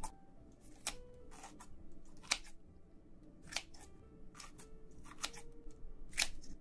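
Kitchen scissors cutting through a piece of braised seafood in thick sauce: several sharp snips, roughly one a second.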